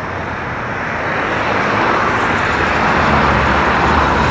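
Steady rushing jet engine noise from a departing Airbus A330-900 climbing away, gradually getting a little louder.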